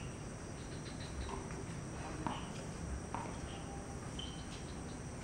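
Quiet outdoor court ambience with two soft taps a little under a second apart: a tennis ball bounced on the hard court before a serve.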